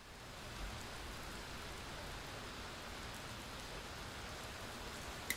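Steady rain falling, fading in at the start and then holding even.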